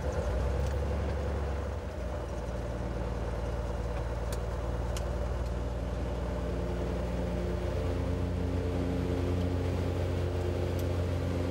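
Piston engine and propeller of a high-wing single-engine light aircraft running, heard from inside the cabin; the engine's tone grows stronger about halfway through.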